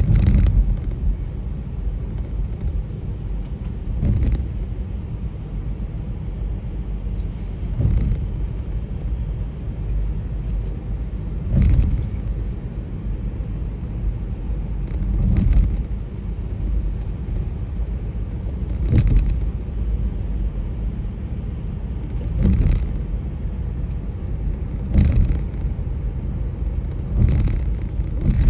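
Car driving, a steady low road rumble with a short knock about every three to four seconds.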